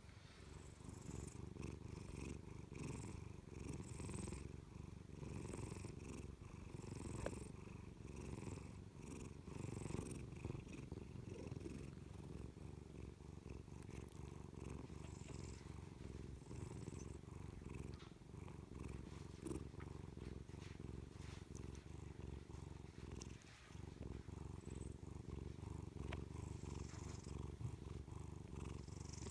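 Domestic cat purring steadily, a low, even rumble that pulses with each breath and breaks off briefly once near the end.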